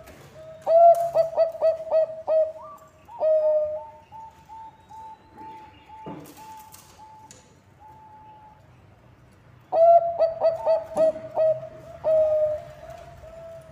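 Zebra dove of the Bangkok type cooing: two bouts of rapid, staccato coos that each end in a longer note, about a second in and again near ten seconds in. Between the bouts runs a fainter, slightly higher string of coos, broken by a short knock.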